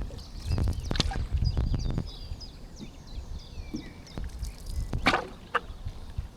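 A canoe paddle dipping and splashing in the water, with small birds chirping in the reeds and a low rumble underneath. The loudest splashes come about a second in and again near five seconds.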